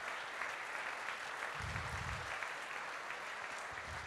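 A congregation applauding: steady clapping from many hands, with a brief low rumble about one and a half seconds in.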